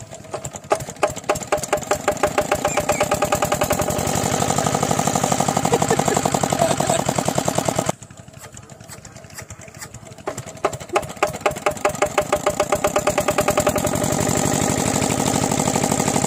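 Kirloskar single-cylinder diesel pump engine being hand-cranked to a start: separate knocks that quicken into a steady fast running beat. The sound breaks off suddenly about halfway through, then the engine is cranked again and picks up speed into steady running.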